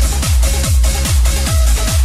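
Electronic dance music with a steady four-on-the-floor kick drum, about two beats a second.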